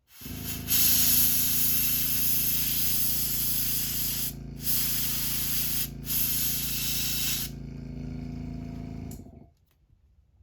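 Airbrush spraying paint onto a crankbait in three long bursts of hiss, over the steady hum of a small air compressor's motor, which starts at the outset and stops about nine seconds in.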